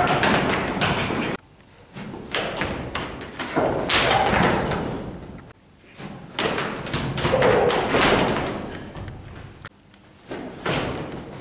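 Thumps and slaps of a close-quarters martial-arts exchange: feet stamping and bodies striking each other and hitting the floor, in three or four bursts of sharp knocks with short pauses between them.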